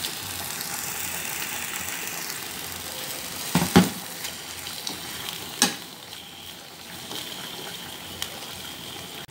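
Liver steaks sizzling steadily as they sear in a little oil in a frying pan, with a few sharp clicks of a metal fork against the pan as the steaks are turned, the loudest near the middle.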